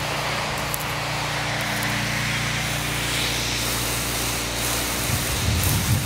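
Lawn sprinklers spraying water with a steady hiss over a steady low hum, with a low rumble coming in about five seconds in. The sprinklers are pulsating rather than spraying evenly, which the owner puts down to a faulty valve in the sprinkler valve box.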